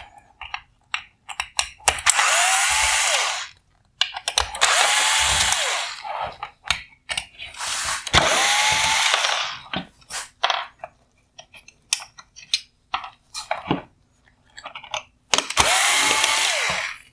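Electric screwdriver with a T20 Torx bit whirring in four short bursts of one to two seconds each, backing out four screws. Each burst has a pitch that rises and then falls as the motor spins up and stops. Small clicks and knocks of plastic parts being handled come between the bursts.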